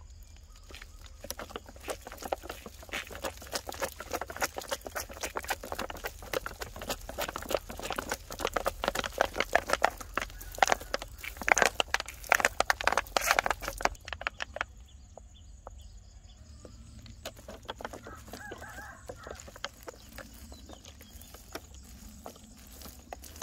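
Chickens clucking. For the first fourteen seconds or so a dense run of crackling and scratching sits over them, then it drops away and a few faint calls come through.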